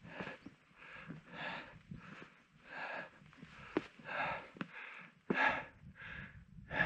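A climber's hard, rhythmic breathing close to the microphone, about one to two breaths a second, from the exertion of a steep ascent at high altitude. A few sharp clicks come in the middle.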